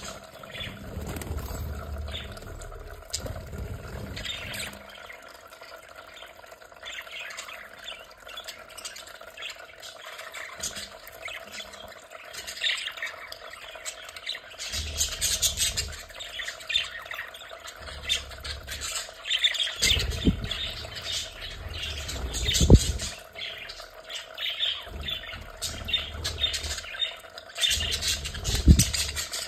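Several budgerigars chattering with quick chirps and squawks, busier in the second half, with a few low thumps.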